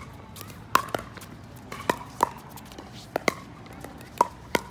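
Pickleball rally: paddles striking the hollow plastic ball in a quick, irregular run of sharp pops, several in close pairs.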